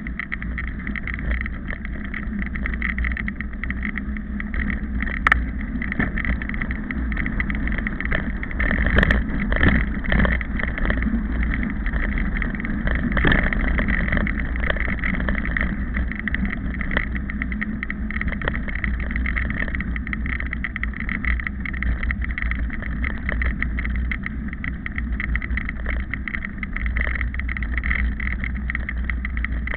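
Wind buffeting the microphone of a camera carried by a runner, a steady low rumble. Over it come constant small knocks and jolts from the strides on a dirt road.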